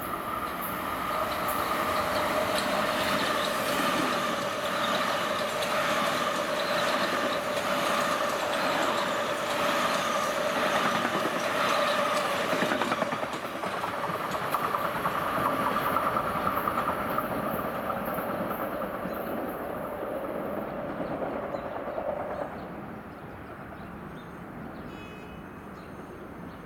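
Metro-North M8 electric multiple-unit commuter trains running past on the rails: a steady high-pitched whine over a rolling rumble. About 22 s in, the sound drops to a quieter rumble as another train comes on from a distance.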